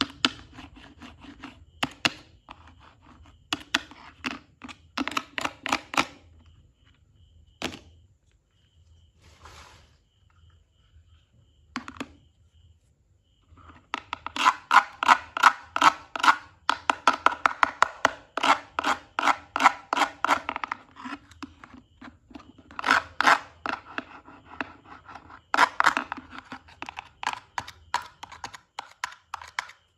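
A plastic toy knife sawing back and forth across hollow plastic toy food on a plastic cutting board: rapid scraping strokes, several a second, in runs with short pauses between them. The longest and loudest run is about halfway through.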